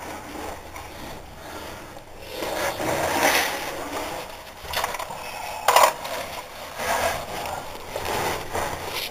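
Clothing and body scraping and rubbing against rock as a person squeezes and crawls through a tight cave passage, in irregular shuffling surges, with one sharp knock against the rock about six seconds in.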